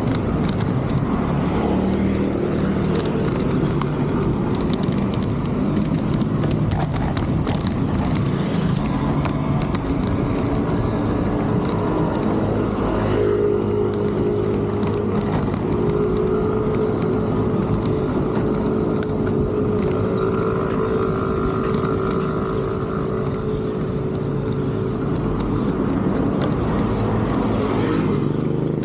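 City road traffic heard while riding a bicycle: a steady rumble of car engines and tyre and road noise. A steady engine hum holds from about halfway through until near the end.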